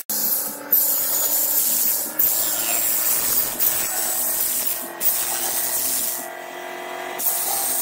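CNC boring machine spindle running while a carbide blind-hole drill bit plunges into a wooden board, hole after hole. The harsh cutting noise starts sharply several times and drops to a quieter spell near the end, over a steady machine hum.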